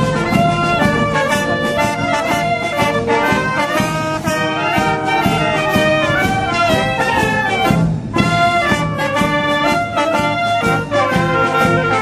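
A town wind band playing a march-like piece: clarinets, saxophones and brass in harmony over a steady bass-drum beat, with a brief break in the beat about two-thirds of the way through.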